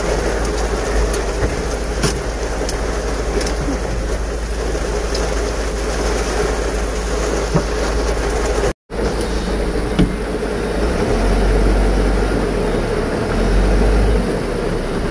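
Heavy rain pounding on a truck's cab and windscreen, with the engine running underneath and a few sharp taps. The sound breaks off for an instant just after halfway, then goes on with a heavier low rumble.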